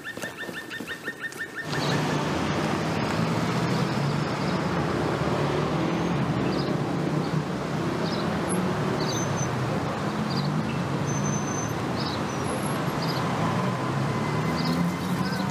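Outdoor ambience: a steady rumble of traffic with birds chirping now and then. Before it comes in, about a second and a half in, there is a rapid, even trill of high chirps.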